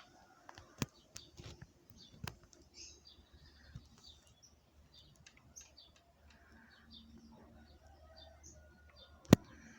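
Birds chirping in short, high notes, with scattered sharp clicks and one loud click near the end.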